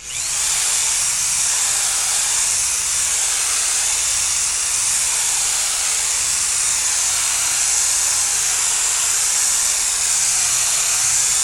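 Loud, steady hiss that starts suddenly and runs on unbroken.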